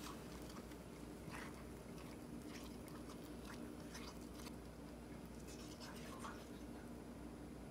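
Spoon stirring thick chocolate mug-cake batter in a ceramic mug: faint, irregular scrapes and light taps of the spoon against the mug's sides and bottom. A low steady hum runs underneath.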